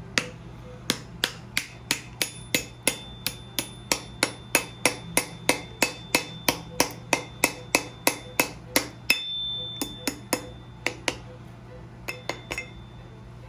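A hammer striking metal in steady, even blows, about three a second, each with a high ringing tone. After a short pause a few more scattered strikes follow, then the hammering stops near the end.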